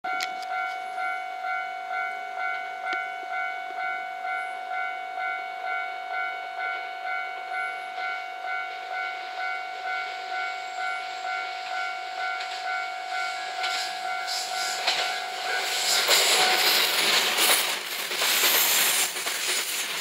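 Japanese level-crossing warning bell ringing its steady electronic ding-ding, about one and a half strikes a second. From about 15 seconds in, a JR West 227 series electric train runs past close by, its running noise rising quickly and drowning out the bell.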